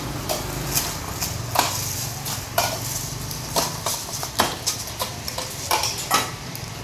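Metal spoon knocking and scraping against stainless steel cups as rice is scooped and packed into them: a string of sharp, irregular clinks, roughly one a second.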